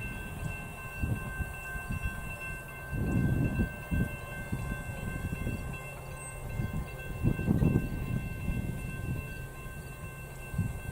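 Low rumble of an approaching Union Pacific intermodal freight train, rising and falling, louder about three seconds in and again near seven and a half seconds, with faint steady high tones above it.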